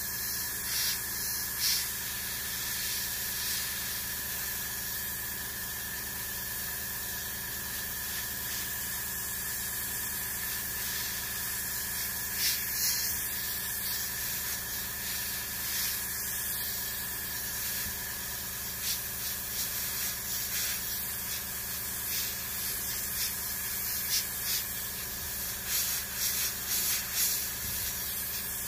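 Gravity-feed airbrush spraying paint: a steady hiss of compressed air, with short louder spurts of hiss in the last ten seconds or so.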